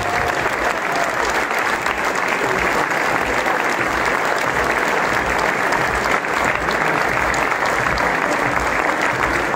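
A crowd applauding, a dense, steady clapping that holds at the same strength throughout.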